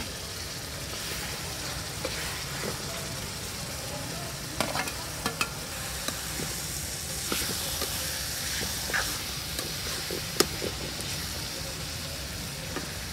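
Potato wedges being stirred into sizzling masala in a metal kadai: a steady sizzle with the metal ladle clinking against the pan now and then, the sharpest clink about ten seconds in.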